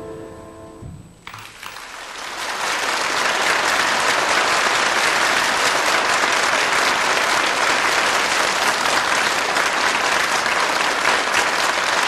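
The last piano chord of a song rings and dies away, then a concert audience breaks into applause about a second in, swelling within a couple of seconds to steady, dense clapping.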